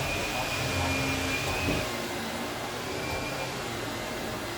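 Vacuum cleaner running with a steady drone. A thin high whine on top of it drops away about two seconds in.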